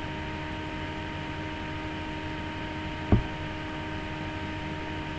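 Steady electrical hum and hiss of the recording setup, with one brief knock about three seconds in.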